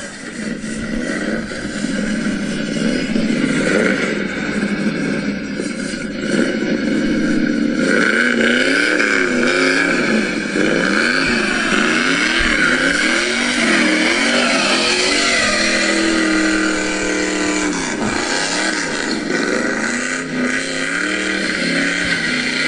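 Car engine being revved up and down over and over, its pitch rising and falling about once a second.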